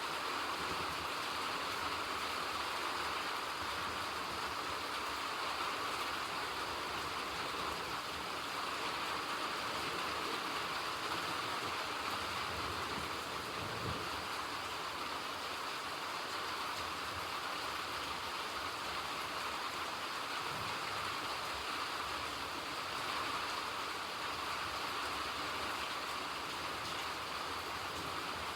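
Steady rain falling, an even, unbroken noise with no distinct events.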